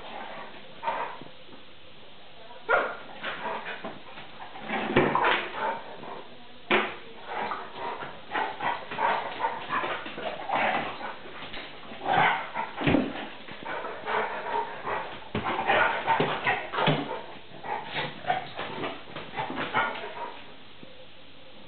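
A Vizsla puppy and a pointer play-fighting, giving dog vocalisations in short, irregular bursts, with quieter stretches near the start and the end. These are play noises, not a real fight.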